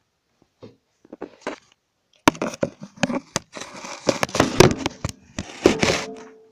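Close handling noise: rustling, scraping and sharp knocks as a phone is moved about. It starts about two seconds in and is loudest just before the end.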